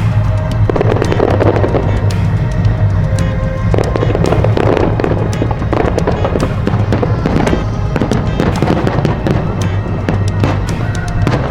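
Aerial fireworks bursting and crackling in rapid, irregular succession, over music playing with a steady low bass.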